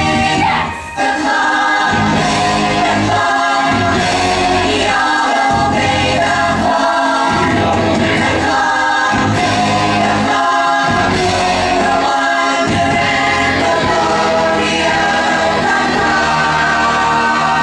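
Stage-musical song number: a chorus of voices singing together over instrumental accompaniment with a steady beat.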